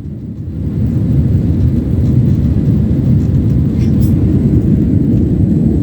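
Boeing 767-300ER cabin noise in the climb after takeoff: a steady, deep rumble of the engines and airflow. It swells over the first second, then holds.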